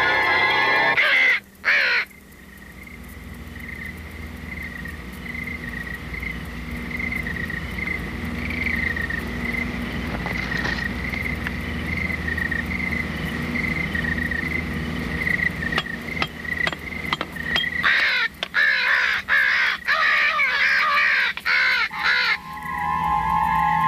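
Crows cawing: two caws about a second in, then a rapid flurry of caws near the end. Between them lies a long quieter stretch of faint, slowly rising hiss with a thin wavering high tone.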